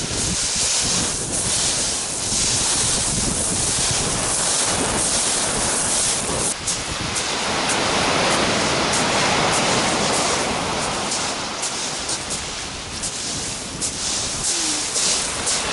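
Surf breaking and washing on a shingle beach, a steady loud rush, with wind on the microphone.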